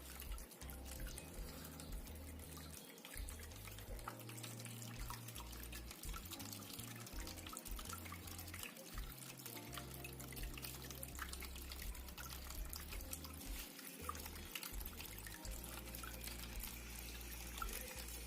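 Small cement tabletop waterfall fountain running: a faint, steady trickle of water with many small drips.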